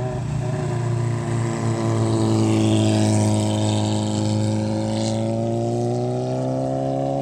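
Motorcycle engine running at a steady pace, its note rising slightly over the last couple of seconds.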